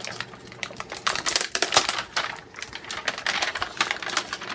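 Small plastic pumpkin ornaments being handled and pushed aside, clattering against one another: a rapid run of light clicks and rattles, starting about a second in.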